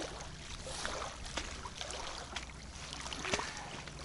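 Steady low outdoor ambience of wind and water by the shore, with a few faint small clicks.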